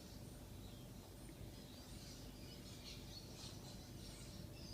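Faint background birds chirping in short, repeated calls over a low steady hum.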